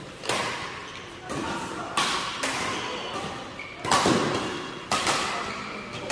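Badminton rackets hitting a shuttlecock four times in a doubles rally, a second or two apart. Each hit is sharp and echoes in a large hall.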